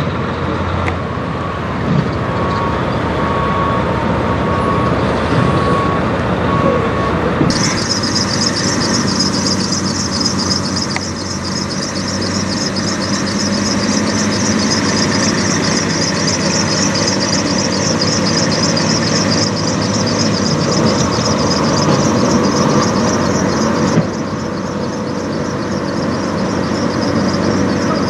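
Diesel engines of Peterbilt semi trucks running, with the sound changing abruptly about seven seconds in and again near the end. A steady beeping repeats over the first several seconds.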